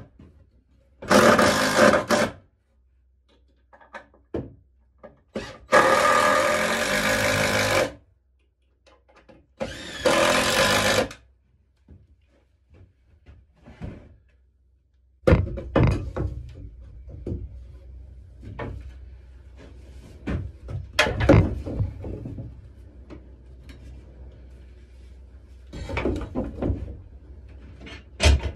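Cordless drill/driver running in three bursts, the longest about two seconds, as it drives screws to fix a 2x4 to a wall. From about halfway on, there are wooden and metal tool handles knocking and clattering as shovels and rakes are set into the rack.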